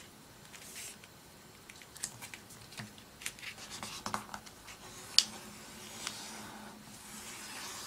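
A sheet of paper being folded and its crease pressed flat: soft rubbing with scattered small crinkles, and one sharp crackle about five seconds in.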